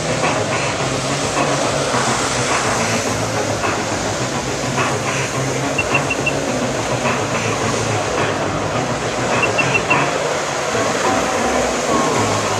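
Jet ski engine running hard to power a Flyboard, with the steady rush of its high-pressure water jets spraying onto the lake. Twice a quick set of three short high chirps sounds over it.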